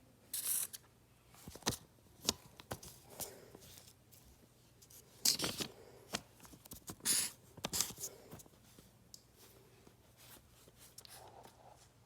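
Handwriting on paper: short scratchy pen strokes at irregular intervals, a few louder scrapes among them.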